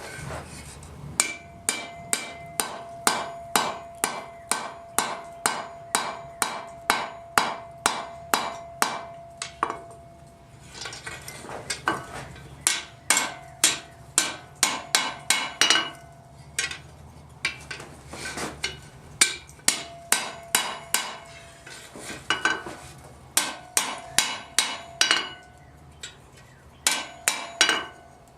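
Hand hammer striking hot steel on an anvil while forging tongs, in runs of about two blows a second with short pauses between, each run carrying a steady metallic ring.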